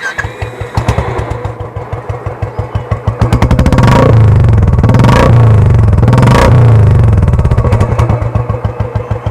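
Royal Enfield Classic 350's single-cylinder engine idling with an even thump from the exhaust. A little after three seconds it is revved and held higher, with a couple of sharp blips of the throttle, then drops back to a thumping idle near the end.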